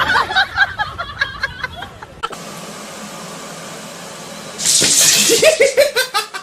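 Bouts of laughter, with a steady hissing noise between them for about two seconds in the middle.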